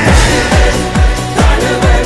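Music from a song with a heavy kick drum on every beat, a little over two beats a second, under sustained synth tones.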